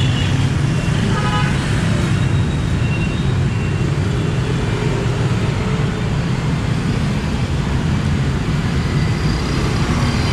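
Steady street traffic of passing motorbikes and cars, with a short horn toot about a second in.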